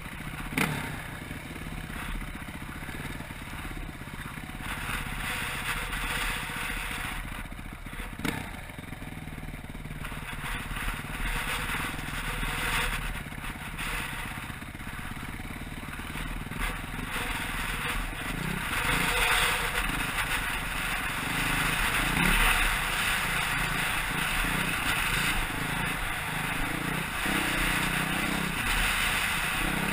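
Dirt bike engine running while riding a rough dirt trail, heard from a helmet-mounted camera, mixed with wind noise and the clatter of the bike over bumps. There is a sharp knock near the start and another about eight seconds in, and the engine grows louder over the second half.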